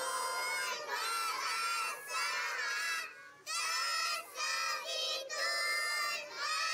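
Young girls singing a prayer together in unison, loud and high, in short phrases with brief pauses between them.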